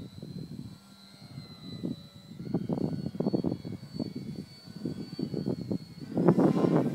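Electric-powered RC aerobatic biplane (Precision Aerobatics Addiction) in flight: a steady high-pitched motor whine over uneven propeller noise. The noise swells loudest near the end as the plane passes close overhead.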